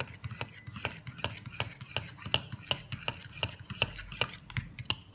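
A fork stirring beaten egg and chopped fish cake in a plastic bowl, its tines clicking against the bowl about three times a second over a soft wet swishing.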